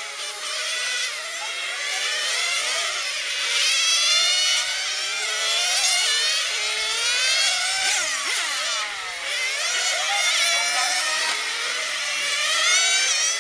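Several 1/10-scale nitro RC touring cars racing together, their small glow engines running at high revs, pitch rising and falling over and over as each car accelerates down the straights and backs off into the corners.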